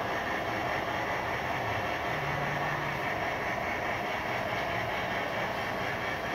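Miniature garden model train running on its track, a steady running noise.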